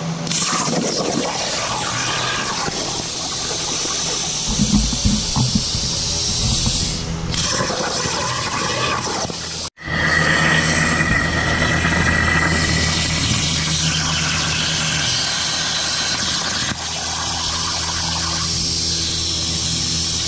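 CNC plasma torch cutting sheet metal over a water table: a steady hiss of the arc and rushing air, cutting out for a moment about halfway through, then going on with a steady high whistle.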